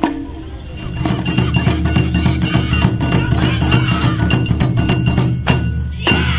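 Dance music for Awa odori, with repeated percussion strikes, bell-like ringing tones and a steady bass. About six seconds in it shifts to a different passage with a sliding melody.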